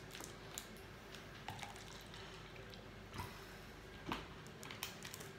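A man drinking water from a plastic bottle: a few faint, scattered clicks and liquid sounds from the bottle and the drinking.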